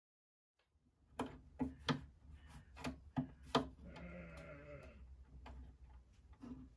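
Small sharp clicks and taps from small metal hardware handled against the rim of a wooden chest, about seven in two seconds. They are followed about four seconds in by a wavering, bleat-like cry lasting about a second, and a steady low hum runs underneath.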